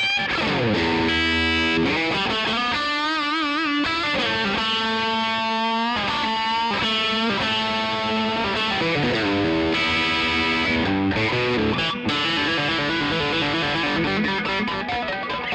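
Epiphone LP100 electric guitar played through an amplifier: a continuous lead passage of single notes, with slides near the start and notes held with vibrato a few seconds in.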